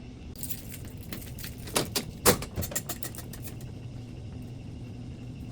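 Keys and latch clicks as a vending machine is unlocked and opened: a few sharp clicks and knocks, most in the first three seconds and the loudest a little past two seconds, over a steady low hum.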